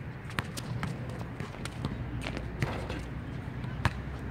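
Running footsteps and sneaker scuffs on an outdoor hard basketball court during one-on-one play, with irregular sharp knocks of the basketball; the loudest knock comes near the end.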